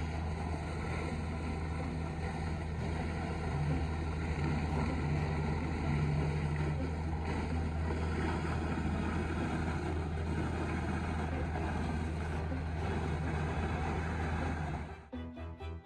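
A large engine running steadily at a constant low hum, with no change in speed; music cuts in near the end.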